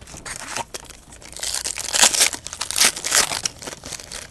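Plastic packaging crinkling and crackling as it is handled, a dense run of small crackles that is loudest in the middle.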